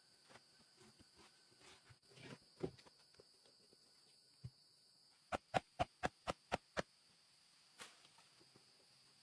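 Steady high insect buzz, with a quick even run of about seven sharp knocks, about five a second, just past the middle.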